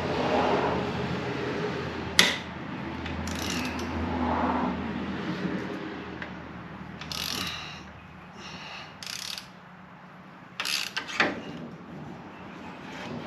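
Ratchet clicking and short metallic clinks as a T45 Torx driver works the fork clamp bolts loose to free a Harley fork tube, with a sharp click about two seconds in.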